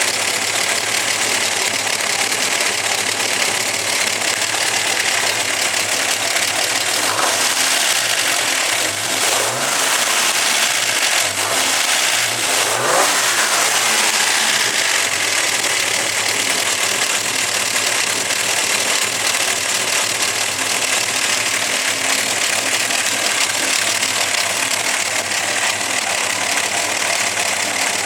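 Chrysler slant six inline-six engine with a big solid-lifter camshaft, idling roughly with a rhythmic, sewing-machine-like ticking of the solid lifters (valve lash), which is normal for solid lifters. The engine is revved up and back down briefly a couple of times around the middle.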